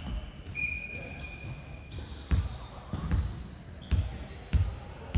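A ball bounced again and again on a hard gym floor, a thud about every three-quarters of a second through the second half, with a few short high squeaks earlier.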